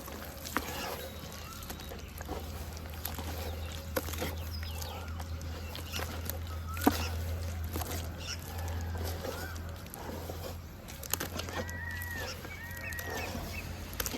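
Red dirt crumbling and dipping into water, with scattered crisp clicks and crackles over a steady low hum. Birds call in the background, with two arched calls about three quarters of the way through.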